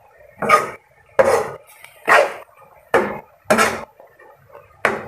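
Metal ladle scraping and tossing cabbage stir-fry in a wok, six short strokes about one every 0.8 seconds.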